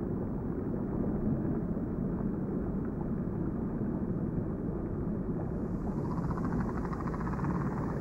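Underwater noise picked up by a hydrophone lowered to listen for humpback whales: a steady low rumble with no clear whale calls. A fainter high hiss joins about halfway through.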